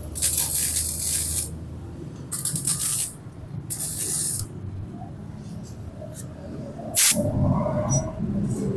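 Electric arc welding on a Honda Beat's steel pipe frame: three hissing bursts of a second or so, then a short one about seven seconds in.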